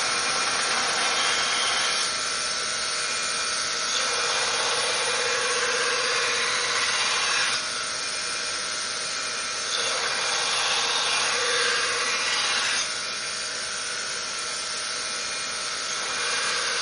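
Belt grinder running, with steel forged chef-knife blades being ground against the belt to reprofile them: a steady grinding hiss over a constant motor whine, shifting abruptly in level and tone every few seconds.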